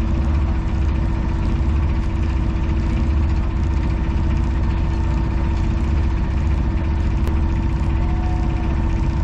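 Sailboat's auxiliary engine running steadily with a low, even throb as the boat motors away from the dock.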